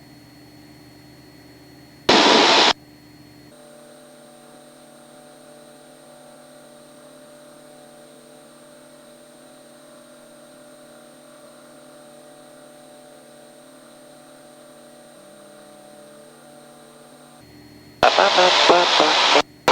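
Cessna 172 Skyhawk engine at full power in the climb after takeoff, heard as a steady hum of several level tones through the headset intercom audio. Two short, loud bursts of noise break in, one about two seconds in and a longer one near the end.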